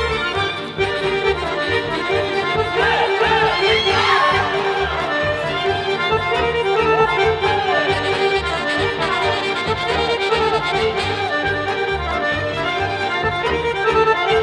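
Serbian folk dance music played live by a folk orchestra, with sustained melody tones over a steady rhythmic beat.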